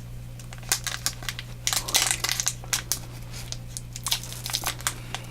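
Plastic foil wrapper of a trading-card booster pack crinkling as it is handled and pulled at, in short irregular bursts.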